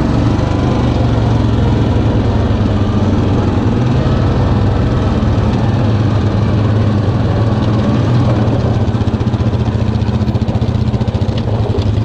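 A 2019 Yamaha Kodiak 700 EPS ATV's single-cylinder engine running steadily at low speed, its pitch holding level, with a couple of light knocks near the end.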